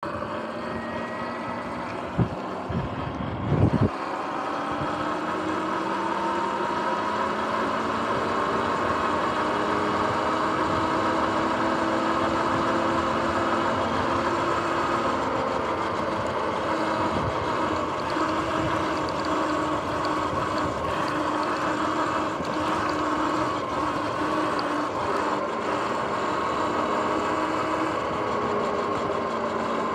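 Sur-Ron X electric dirt bike under way: its motor and drivetrain whine in several steady tones that slowly rise and fall with speed, over tyre and wind noise. A few sharp knocks sound about two to four seconds in.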